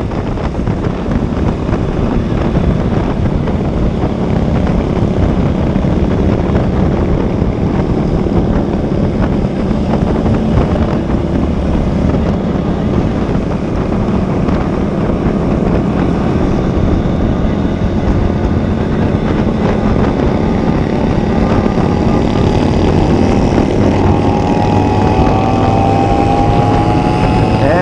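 Motorcycle riding at highway speed: steady engine drone under heavy wind noise on the camera's microphone, with the engine pitch rising near the end.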